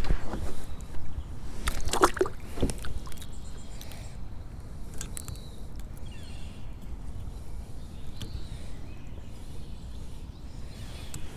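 Handling noise in a kayak: a few knocks and rustles in the first three seconds over a steady low rumble, then quieter.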